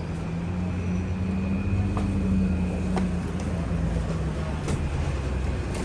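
Steady low vehicle rumble with a held hum, and a couple of faint clicks.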